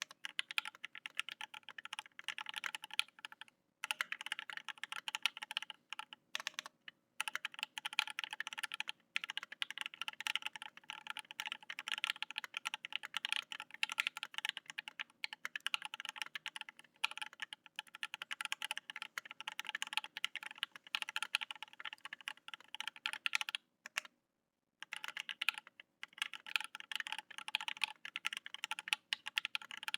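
Steady, fast typing on a Think 6.5 mechanical keyboard with 43 Studio Toy switches lubed with Krytox 205g0 and filmed, ePBT keycaps and no case foam. The keystrokes run densely, broken by a few short pauses, the longest about a second long two-thirds of the way through.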